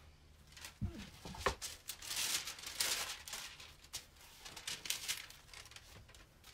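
Two dull knocks about a second in, then wax paper crinkling and rustling as it is pulled out from around a freshly pressed book, with small clicks of handling.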